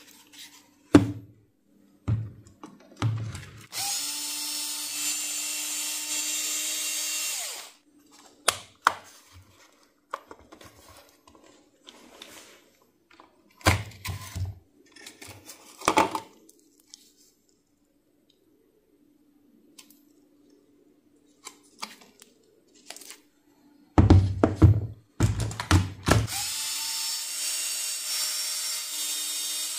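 A cordless power tool's motor starts, spins up and runs steadily for about four seconds, then starts again near the end. Knocks and thuds come before and between the runs.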